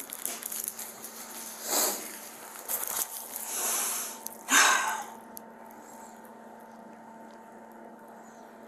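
A few brief rustling and handling noises, the loudest about four and a half seconds in, as a person stands up in a fleece coat. After that a faint steady electrical hum.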